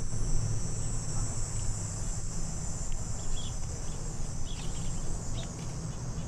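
Steady high-pitched insect chorus over a low rumble, with a few short faint chirps in the second half.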